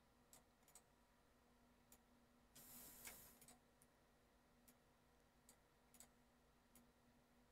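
Faint computer mouse clicks, about ten of them scattered irregularly, over near silence, with a short burst of noise about two and a half seconds in.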